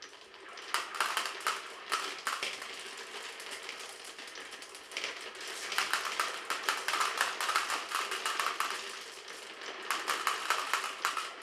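Marbles rattling and clicking through a marble run: a dense stream of small hard clicks that thickens about five seconds in and again near the end.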